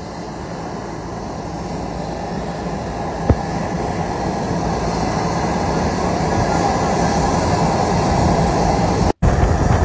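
Steady roar of aircraft engine noise on an airport apron, growing gradually louder, with a brief dropout near the end.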